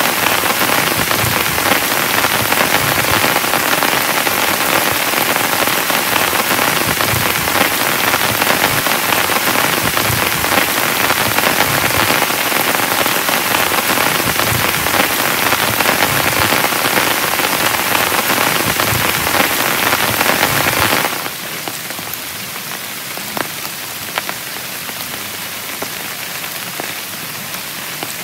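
Heavy rain falling on a tent, a dense steady hiss. About three-quarters of the way through it suddenly drops to a quieter, lighter rain in which single drops tick separately.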